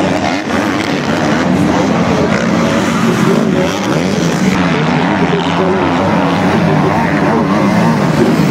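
MX2 motocross bike engines running hard on the track, their pitch rising and falling with throttle and gear changes.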